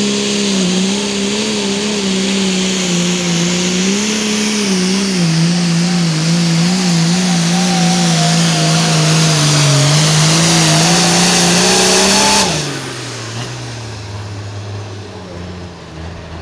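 Hot Farm class pulling tractor's engine running at full throttle under load, its pitch wavering up and down as the tractor pulls the sled. About twelve seconds in the throttle is shut off and the engine drops abruptly to a low idle, the end of the pull.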